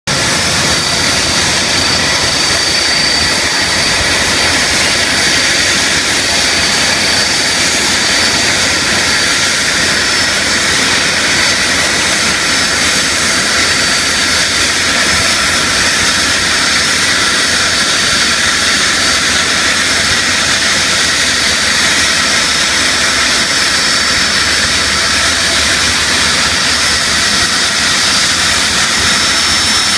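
Boeing 747SP's four jet engines running at low taxi power: a steady loud rush with a high-pitched whine over it.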